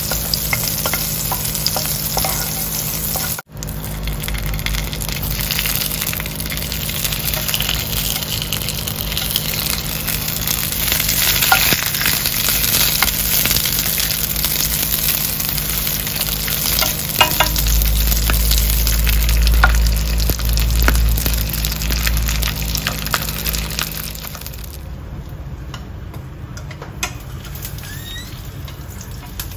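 Food sizzling as it fries in a hot pan, a steady crackling hiss with scattered small pops. There is a brief dropout about three and a half seconds in, and the sizzle dies down near the end.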